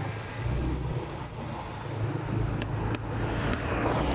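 Scooter engine running while riding along the road, with wind noise on the microphone growing louder near the end.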